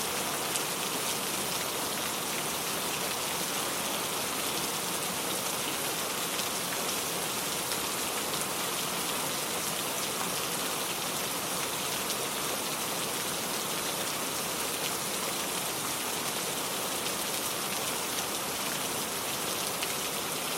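Heavy rain falling steadily, with a dense, even hiss and scattered sharper drop ticks.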